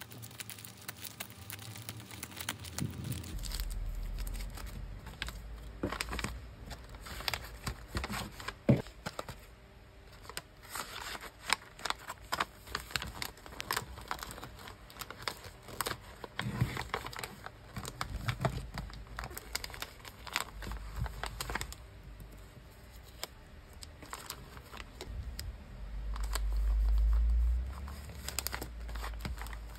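Clear plastic sleeves and paper packaging bags crinkling and rustling in the hands, with many sharp crackles and taps as the packets are handled and a bag is folded shut. A low muffled rub sounds for about a second and a half near the end.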